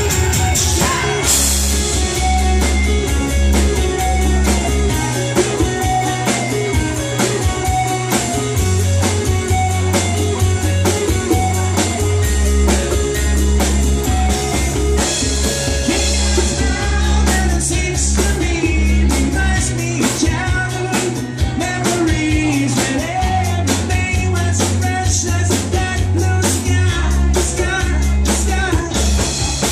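Live band playing upbeat dance music, with electric keyboard, drum kit, congas and electric guitar over a steady beat and a bass line that shifts every few seconds, with a vocalist singing.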